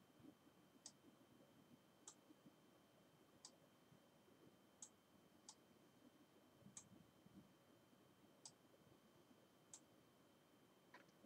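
Near silence with faint, sharp clicks of a computer mouse, about ten of them, spaced irregularly roughly a second apart, over a faint steady high whine.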